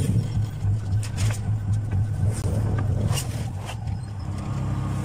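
Motorcycle tricycle engine idling with a low, pulsing note and a few light clicks. Near the end it turns to a steadier drone.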